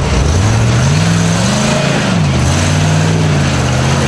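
Rock-crawling Jeep CJ's engine revving under load as it climbs a rocky ledge: the revs rise for about a second and a half, fall sharply, then pick up again and hold steady.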